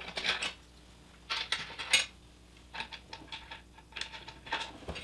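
Small 1/4-20 steel hex-head bolts clinking and rattling against aluminium rails as they are set into the rail slots and pushed into line. The clinking comes in about four short clusters of clicks.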